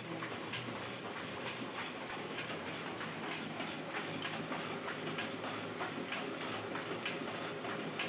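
Small sheet-fed rota offset printing press running, a steady mechanical clatter and hiss with a regular click about twice a second as it cycles through sheets.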